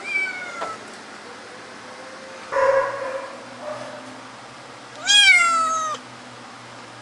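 Domestic cat meowing three times: a short meow falling in pitch at the start, another about two and a half seconds in, and the loudest and longest about five seconds in, rising then falling in pitch.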